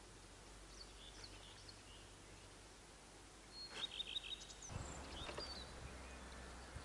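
Faint songbirds chirping over quiet pond-side ambience, with a brief burst of louder chirps about four seconds in. Just after that a low rumble of handling noise on the microphone sets in as the camera is moved.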